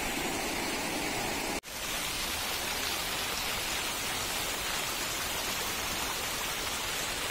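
Water from garden fountain jets splashing down into a pool, a steady rain-like hiss. The sound drops out for an instant about a second and a half in, then carries on unchanged.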